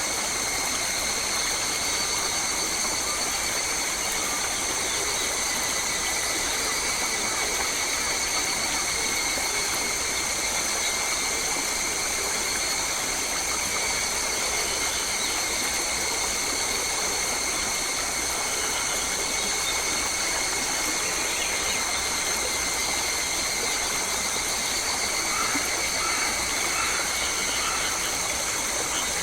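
Steady forest ambience: an even rush like running water under a continuous high-pitched drone held at several pitches, with a few faint chirps near the end.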